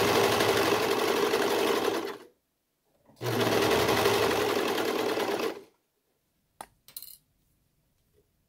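Serger (overlock machine) stitching a neckband onto knit fabric in two steady runs of about two and a half seconds each, with a brief stop between them. Two short clicks follow, then it goes quiet.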